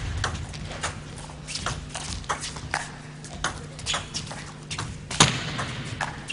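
Table tennis ball knocking on the table and bats, a string of sharp clicks several per second at irregular spacing, with one louder hit about five seconds in.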